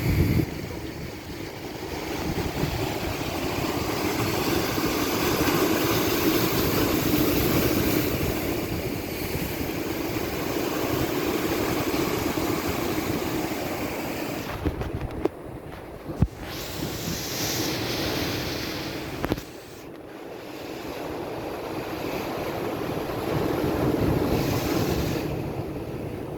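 Ocean surf: waves breaking and washing ashore, swelling and easing every several seconds, with a few sharp knocks and two brief dips past the middle.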